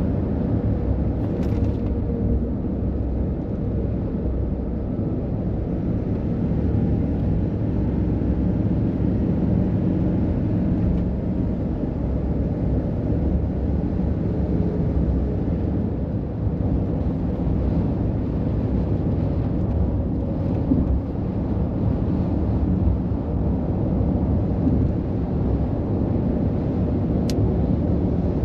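Steady low rumble of heavy road traffic, the running of diesel truck engines and road noise, with no single vehicle passing by.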